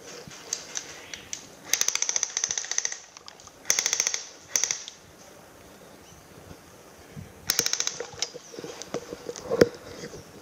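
Electric airsoft guns firing full-auto in four bursts of rapid clicks, the longest about a second, then a single sharp crack near the end.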